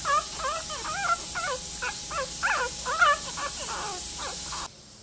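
Newborn puppy crying in a quick run of short, high squeals that rise and fall, about three a second, from a hungry pup waiting to be fed. The crying stops abruptly near the end.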